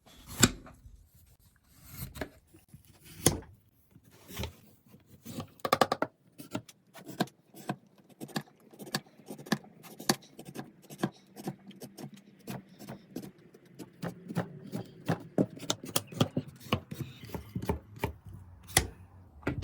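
Vegetable peeler scraping the skin off a raw sweet potato in short, quick strokes. The strokes are spaced out at first and come a few per second from about six seconds in.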